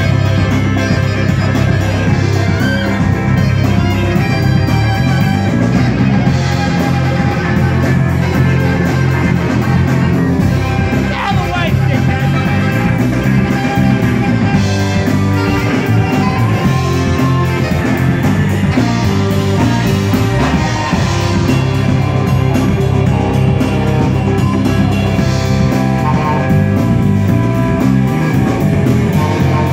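Live amplified rock band playing: electric guitars, bass guitar, drum kit and saxophone together in a steady groove. About 11 seconds in, a lead note slides in pitch.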